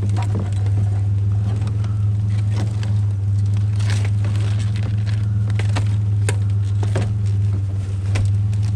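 A vehicle engine idling steadily, with scattered sharp clicks and clanks of small scrap metal pieces being picked up and handled.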